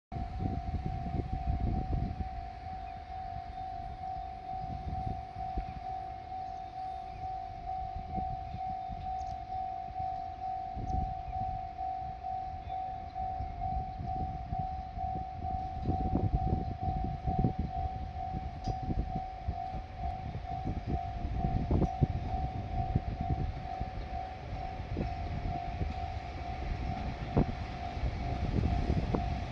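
Japanese railway level-crossing warning alarm ringing: one repeating electronic tone, which signals that a train is approaching, with a low rumble underneath.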